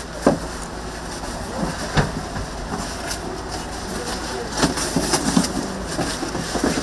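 Kitchen work clatter: sharp knocks of utensils or trays, one near the start, one about two seconds in and a quick run of them past the middle, over a steady hum and hiss.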